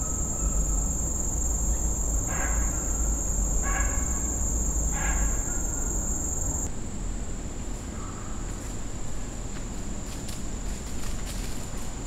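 Steady high-pitched drone of insects, with three short, distant dog barks about two and a half, four and five seconds in.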